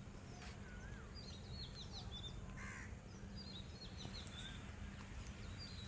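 Faint outdoor birdsong: a crow caws once, about halfway through, while small birds give short high chirps and a wavy whistle around it, over a faint steady low hum.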